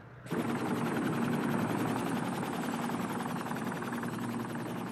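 Large helicopter hovering low: a rapid, even rotor beat over dense rushing noise with a steady hum beneath, cutting in suddenly just after the start.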